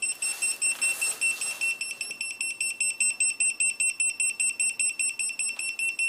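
AS8700A handheld carbon monoxide meter's alarm beeping rapidly at a steady high pitch, several beeps a second. It is warning of a high CO reading, about 200 ppm, from smouldering fireplace ashes with the chimney closed.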